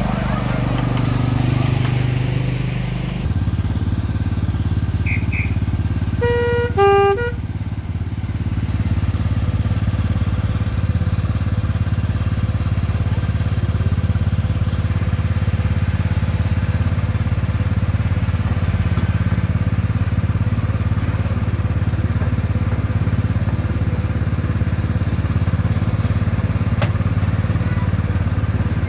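Miniature railway locomotive running steadily under way, its engine note shifting in the first few seconds. About six seconds in, its horn gives a short two-note blast.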